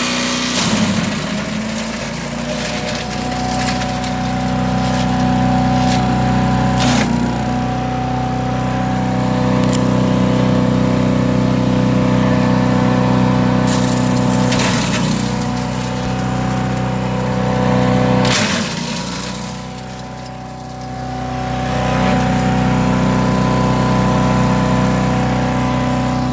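Predator gas chipper/shredder running steadily, with a handful of sharp cracks as branches go through the cutters. About two-thirds through it quietens for a couple of seconds, then comes back up.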